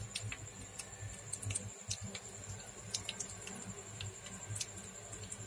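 Mustard and cumin seeds frying in hot oil in a steel pan: a low sizzle with scattered small pops and crackles.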